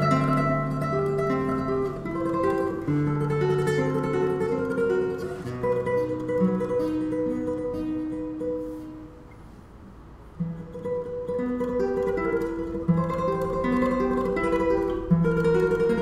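Solo classical guitar played in tremolo: a quickly repeated high melody over plucked bass notes. A little past halfway it drops to a soft, quiet passage, then picks up again.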